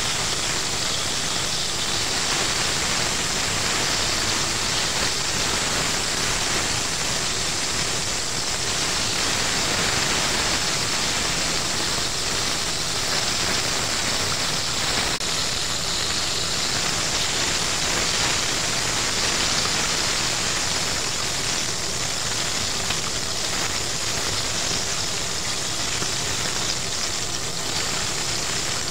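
Battered chicken pieces deep-frying in a pot of hot oil, a steady sizzle.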